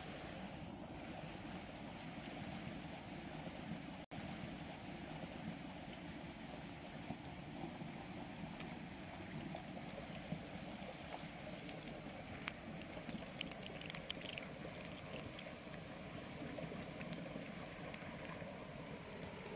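Fast-flowing stream rushing steadily over rapids, with a few sharp clicks and ticks about two-thirds of the way through.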